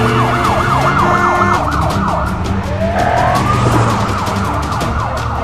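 Emergency-vehicle siren in a fast yelp, about four or five sweeps a second. About three seconds in, a slower rising wail begins. A steady low hum runs underneath.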